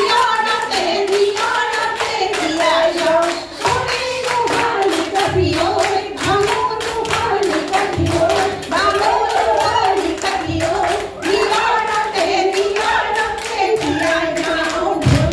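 A group of women singing an Assamese Jeng Bihu folk song together, with rhythmic hand clapping throughout and occasional low thumps.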